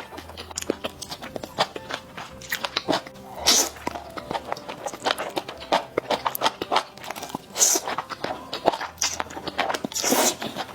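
Close-miked eating sounds of a bowl of sticky, spicy malatang: irregular wet chewing and mouth clicks, with a few louder noisy bursts about a third of the way in, near the middle and near the end.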